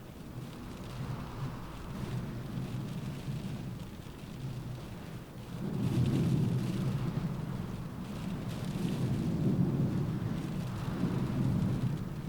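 Rain falling on a car roof with a steady hiss, under a low rumble that swells up about six seconds in and rises again later.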